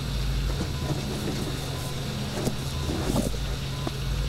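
Steady low machine hum with a faint steady high tone over it, and a few soft rustles.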